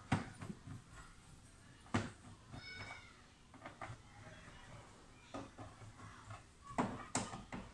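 Scattered clicks and knocks of cable plugs and the TV's plastic back being handled, with a short, high, wavering call about two and a half seconds in.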